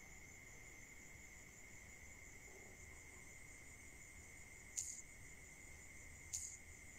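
Near silence with a faint, steady, high-pitched chirring of insects in the background, and two faint clicks near the end.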